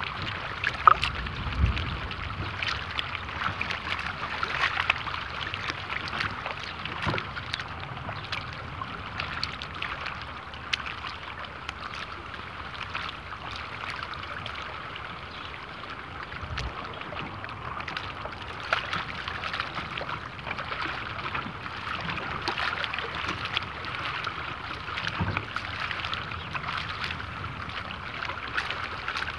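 Small waves lapping close to the microphone at the water's surface, a steady patter of little splashes and slaps, with a sharper slap about a second in.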